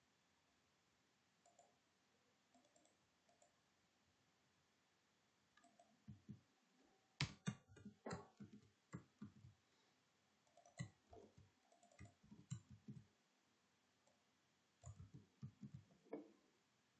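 Computer keyboard typing: a few faint scattered key clicks, then three quick bursts of keystrokes, starting about six, ten and fifteen seconds in.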